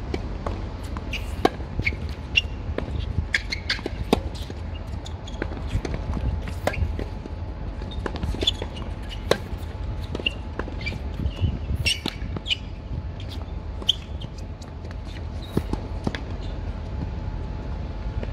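Tennis ball being struck and bouncing on an outdoor hard court: several sharp knocks a couple of seconds apart among smaller clicks, over a steady low rumble.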